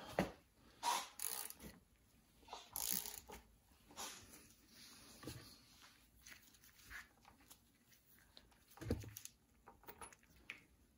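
Ratchet wrench and socket being worked on a nut under the engine while the oil is being drained: faint, irregular clicks and scrapes, with a louder knock about nine seconds in.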